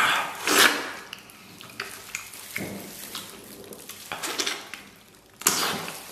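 Close-up wet eating sounds: biting, sucking and chewing on a soft, gelatinous braised beef hoof, in several loud irregular bursts, the loudest in the first second.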